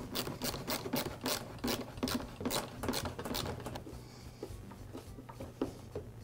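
Screwdriver tightening a worm-drive hose clamp on a backpack blower's intake pipe: a quick run of short clicks, about four a second, that thins out to sparse faint ticks over the last two seconds.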